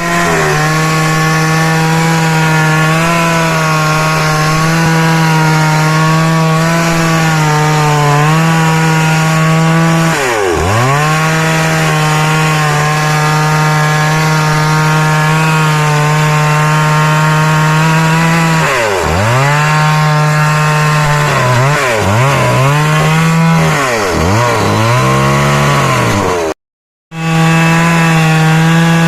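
STIHL two-stroke chainsaw running at high revs while cutting wood. The engine note dips sharply and climbs back about ten seconds in and again around nineteen seconds, then several quick throttle dips come near the end. The sound drops out briefly just before the end.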